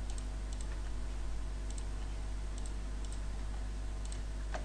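Computer mouse clicking about six times, each click a quick double tick of press and release, with a sharper click near the end, over a steady low hum.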